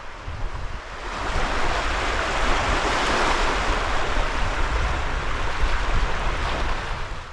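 Rushing noise of wind and waves on the shore, swelling about a second in and holding for several seconds before dying away near the end, with low wind buffeting on the microphone.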